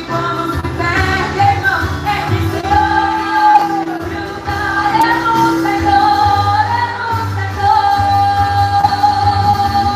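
Live Christian worship music: a band playing with a singer holding long sung notes over a steady bass line.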